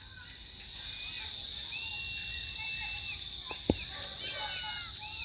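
Outdoor ambience: birds calling with thin, high chirps and whistles over a steady high-pitched hiss, with one sharp tap a little past the middle.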